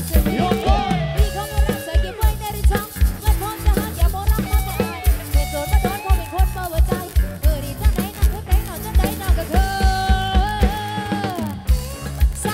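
Live band music from a Thai parade-truck band: a drum kit keeping a steady kick-drum beat under electric guitar and a gliding lead melody line.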